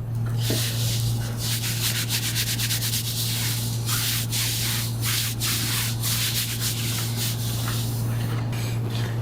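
Irregular bursts of rubbing and scraping noise over a steady low hum.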